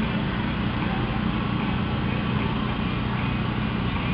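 Vehicle engine running steadily at low revs, a low, even rumble from slow-moving parade traffic.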